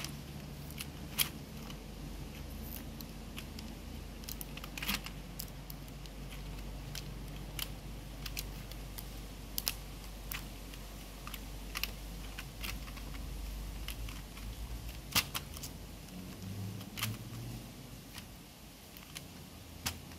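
Irregular light clicks and taps of plastic as a disassembled keyboard's case and membrane circuit sheet are handled and pressed into place, a few sharper clicks standing out. A low steady hum underneath fades out after about fifteen seconds.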